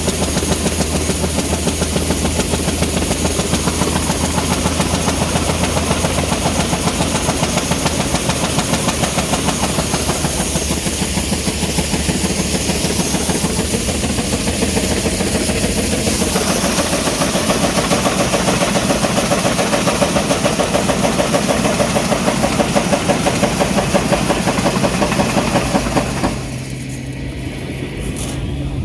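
Gleaner K combine running under load while harvesting corn: steady engine hum with a fast, even clatter from the threshing machinery. Near the end the sound drops suddenly to a quieter engine note.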